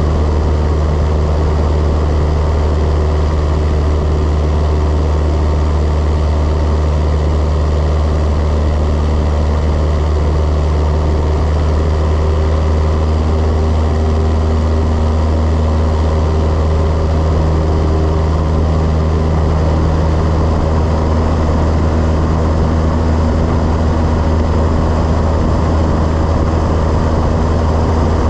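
Cessna 172's piston engine and propeller running steadily at cruise power, a constant low drone.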